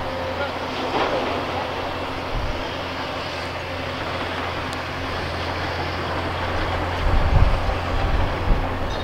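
Tracked hydraulic excavator's diesel engine running steadily under general demolition-site noise, with a sharp knock about a second in. Low buffeting, wind on the microphone, comes in near the end.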